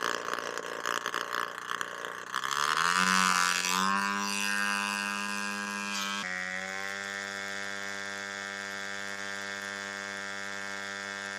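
Small target drone's propeller engine on its launch rail, running rough at low speed, then revving up in a smooth rising whine about two seconds in. It then holds a steady high-pitched drone at full power, with a slight step in pitch about six seconds in.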